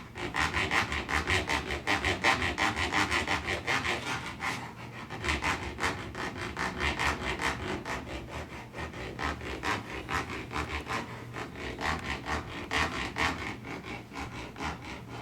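Fast, even back-and-forth scraping strokes on wood, like sawing or rasping, a few strokes a second, easing off slightly after the first few seconds.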